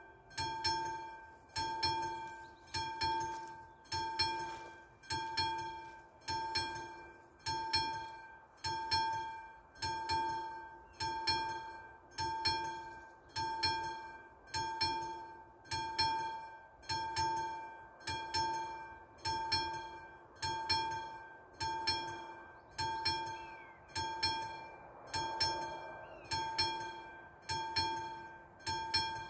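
Classic mechanical level-crossing bells ringing in a steady, even rhythm. Each stroke rings on briefly, sounding the crossing's warning that it is closed for a train.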